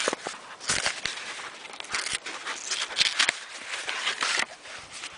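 Rustling and crinkling of MRE packaging, foil-laminate ration pouches and cardboard, being handled in a string of short bursts, with a longer rustle about four seconds in.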